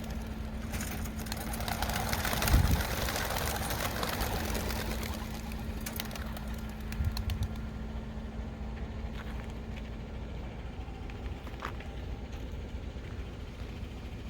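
A flock of young racing pigeons taking off from the release, their wings clattering densely and fading away over about six seconds, with a thump about two and a half seconds in. A steady low hum runs underneath and stops about ten seconds in.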